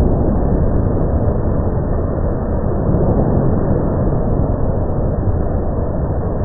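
Automatic tunnel car wash machinery running, its cloth mitter curtains swishing over a car: a steady, loud rushing noise with no pitched tones.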